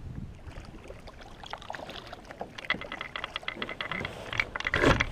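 Fishing reel clicking rapidly with a thin steady whine under the clicks, then a loud knock near the end.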